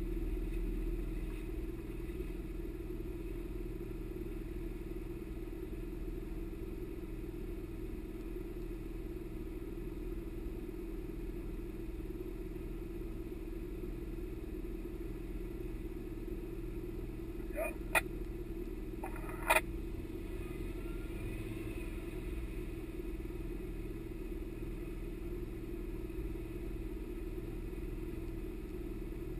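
A 4x4 off-road vehicle's engine running with a steady, even drone. Two sharp knocks about a second and a half apart sound a little past the middle.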